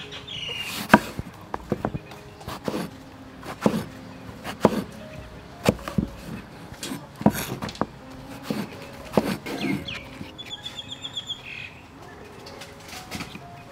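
Cleaver cutting through eggplant and knocking on a wooden cutting board, a chop about every second, the loudest about a second in. Birds chirp in the background, with a short trill near the end.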